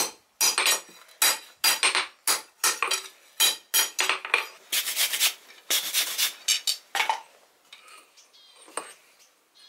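Hand hammer striking a steel bar on an anvil, sharp ringing blows about two to three a second, stopping about seven seconds in.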